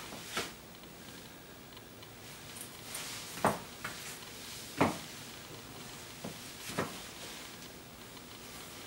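About five sharp, scattered taps of high-heeled booties stepping on a hard floor, the loudest about three and a half and five seconds in.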